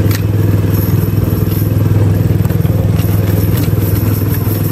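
Small engine running steadily with an even, unbroken hum.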